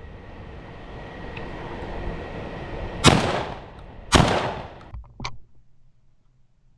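Two shotgun shots about a second apart, each followed by a short ringing tail, then a fainter sharp report about a second after the second shot.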